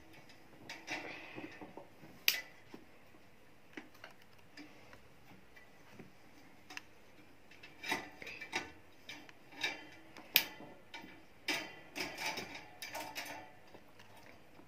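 Metal clicks and light rattles of a Sanyo stand fan's chrome wire front guard being fitted and its rim clips snapped shut by hand. The clicks come at irregular times, with a sharp one about two seconds in and a busier cluster from about eight to thirteen seconds.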